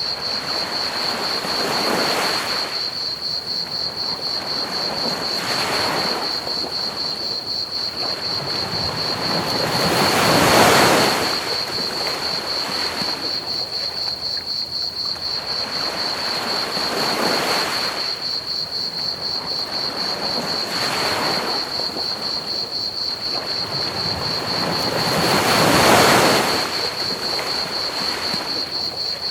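Ocean waves washing onto a beach, swelling and fading every few seconds and loudest twice, over a steady bed of hiss. A continuous high, rapidly pulsing cricket trill runs throughout.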